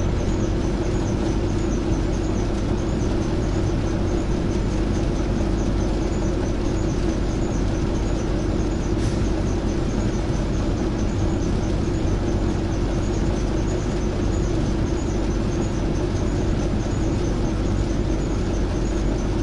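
Industrial ceiling fan running steadily: a constant low hum and air rush, with a faint high whirr that pulses a few times a second.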